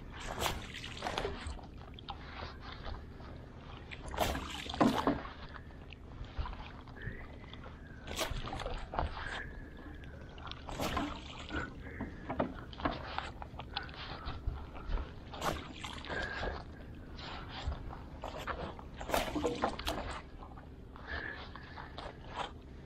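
Fishing net being hauled by hand into a small boat: water splashing and dripping off the net, with irregular knocks against the hull.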